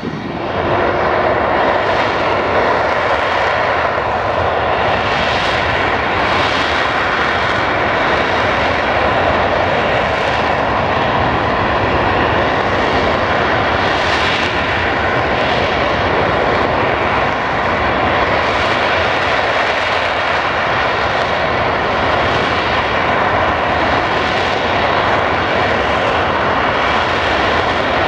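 Jet engines of two BAE Hawk T2 trainers running at power while lined up on the runway: a loud, steady rush with a whine inside it, which steps up in loudness right at the start and then holds even.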